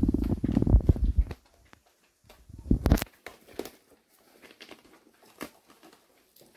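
Low rumbling handling noise and one sharp knock as the camera is moved about. After that come faint, scattered scratching and rustling of kittens clambering inside a hanging fabric bag.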